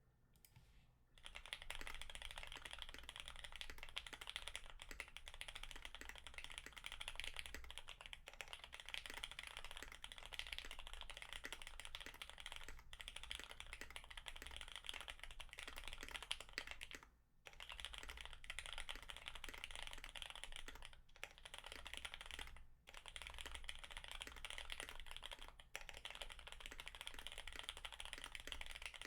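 Duck TC-V3 mechanical keyboard with retooled Cherry MX Black linear switches on a PET plate, Poron-dampened, with GMK keycaps, being typed on quickly and continuously. The key clacks start about a second in and stop briefly a couple of times.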